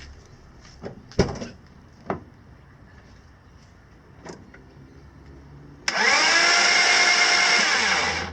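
Starter motor cranking a BMW 330i's M54 straight-six with its spark plugs removed and oil in the cylinders, starting suddenly and spinning steadily for about two and a half seconds before it cuts off. A single knock is heard a second or so earlier.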